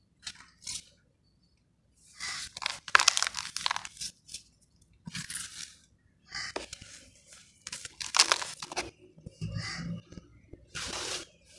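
Dry white sandment (sand-and-cement) chunks crunching and crumbling as they are crushed by hand, in a series of separate bursts each about a second long.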